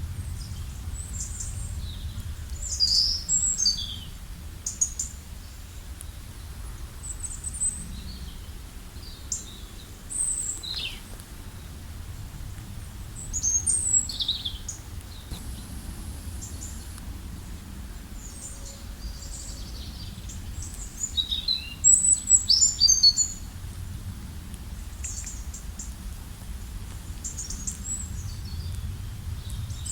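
Several songbirds chirping and singing in short high-pitched calls and trills, busiest in bursts about three, fourteen and twenty-two seconds in, over a steady low background rush.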